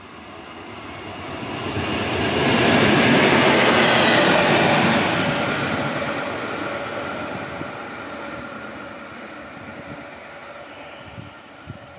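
An InterCity train hauled by an E402B electric locomotive passing through the station at speed. The rush of wheels on rail rises, is loudest about three to five seconds in, then fades as the train draws away.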